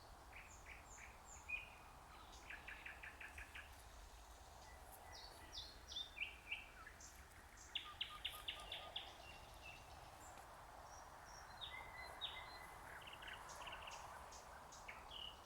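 Nightingale singing: varied phrases of whistled notes, with fast runs of repeated notes twice, faint over a steady background hiss.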